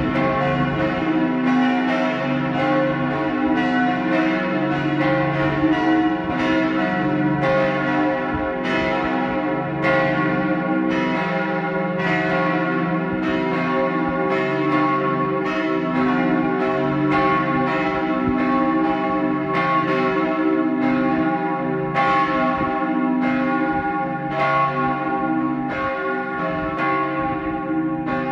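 Several church bells ringing together in a full peal. Their strikes come about every half second to a second and overlap, each bell ringing on so the tones blend without a pause.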